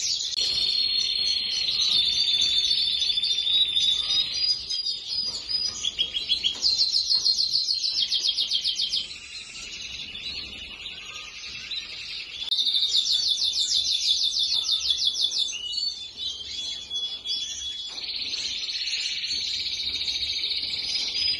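Cage birds in a breeder's bird room singing: fast trilled, twittering song with repeated stanzas. The song drops away around the middle and comes back loud a few seconds later.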